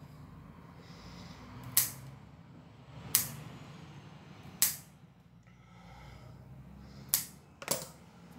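Scissor-style dog nail clippers snipping through a poodle's claws: five sharp clicks at uneven intervals, the last two close together near the end.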